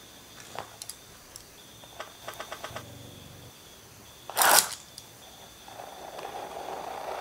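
Painting supplies handled on a glass-topped table: wooden paintbrushes and acrylic paint tubes clicking and rattling as they are laid out, with a quick run of ticks about two seconds in and a louder rustle about four and a half seconds in. Near the end comes a soft steady rasp as blue acrylic paint is squeezed from a tube onto the canvas.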